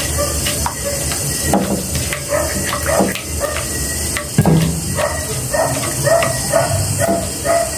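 Spatula scraping and tapping in a pan of melting sugar for caramel, over a steady hiss, with a sharp knock about four and a half seconds in. Short pitched yelps repeat through the second half.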